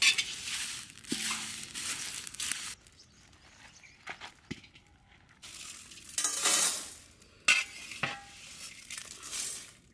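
Whole spices being stirred and roasted in a pan: a scraping, rattling rustle in several stretches, at the start and again in the second half, with a few sharp clinks.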